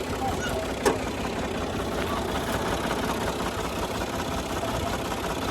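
An old combine harvester's diesel engine and machinery running steadily, with one sharp clank about a second in.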